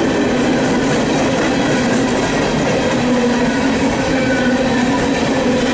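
CSX freight train's coal cars rolling past close by: a steady, loud rumble of steel wheels on rail with a wavering tone running through it.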